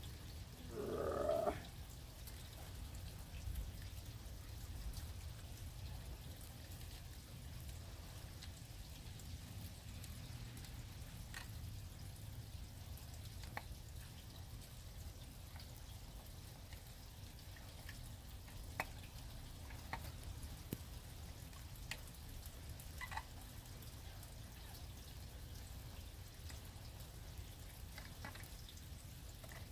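Faint low steady rumble with scattered light ticks and drips. A short louder sound comes about a second in.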